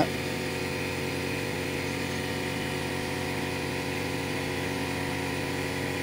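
Steady mechanical hum of a running motor, holding one constant pitch and level throughout.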